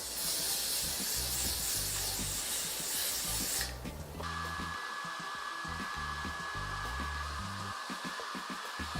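Hand-held hair dryer blowing: a dense hiss for the first few seconds, then a steady whine from about four seconds in, over background music with a bass line.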